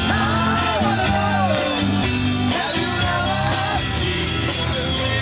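Rock band playing live, with a singer's voice over guitar.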